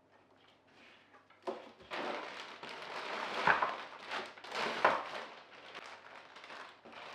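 Packaging being handled and unwrapped: crinkling and rustling of paper or plastic in a series of short handfuls, loudest through the middle.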